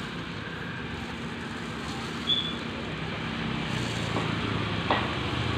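Handheld LPG gas torch burning with a steady rushing flame as it singes the hair off a goat carcass, with a few sharp crackles from the burning hair. A passing motor vehicle's engine hum grows in the second half.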